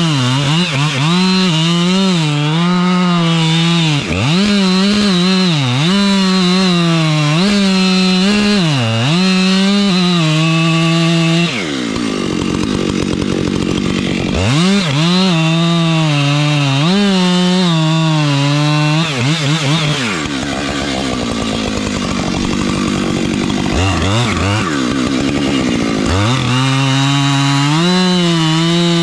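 Two-stroke chainsaw cutting through oak at full throttle, its engine pitch dipping and recovering again and again as the chain loads up in the wood. Twice the steady engine note gives way for a few seconds to a rougher, lower sound.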